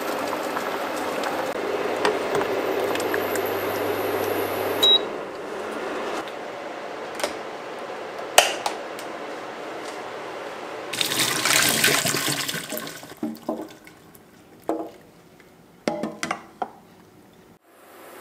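Water boiling in a small pot with cubes of taro and purple sweet potato, a steady bubbling hiss over a low hum that stops about five seconds in. Later comes a brief rush of water as the pot is emptied, then a few light clicks and knocks of cookware.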